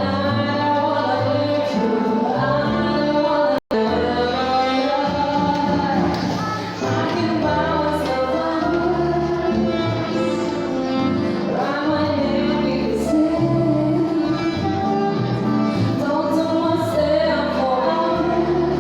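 Background music with a sung vocal line over instruments, dropping out for an instant about four seconds in.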